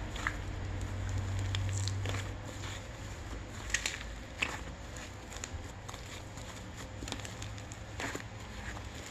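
Shaving foam crackling and squishing as it is handled: scattered small clicks and pops over a low steady hum.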